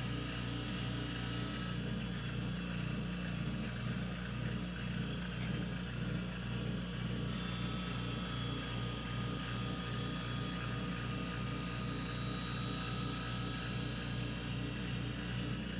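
Skate sharpening machine running with a steady motor hum while a figure skate blade is ground on the hollow-grinding wheel, giving a high grinding hiss. The hiss drops out about two seconds in, leaving only the motor, and comes back about seven seconds in until near the end.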